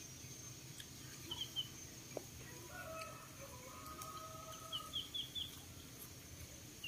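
Faint rooster crow: one drawn-out call about three seconds in. Small birds chirp in short quick runs before and after it, over a steady high whine.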